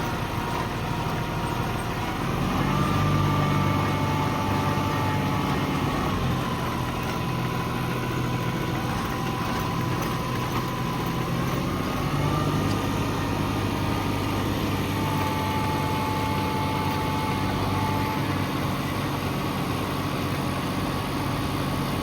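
Tractor engine running steadily under work, its speed picking up about two and a half seconds in and shifting a couple more times, with a higher whine over the engine note.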